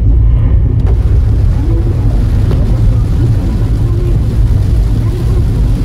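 Loud, steady low rumble of a car driving on a rain-soaked expressway, heard from inside the cabin: engine and wet-road tyre noise as the car pulls away from a toll booth.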